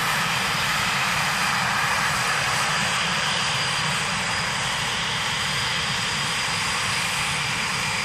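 Eurofighter Typhoon jets taxiing, their twin EJ200 turbofans giving a loud, steady jet noise with a thin high whine held over it.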